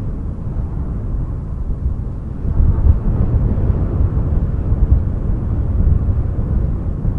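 Strong wind blowing in gusts, a deep rumble that swells about two and a half seconds in and stays strong.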